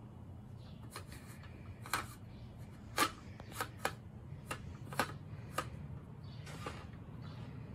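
Light clicks and clatters of toy railway pieces being handled: a small engine and a plastic turntable knocking together, about a dozen sharp taps at uneven intervals.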